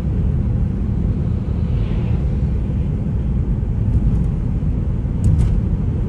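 Car interior road and engine noise while driving: a steady low rumble of tyres on a winter road heard from inside the cabin.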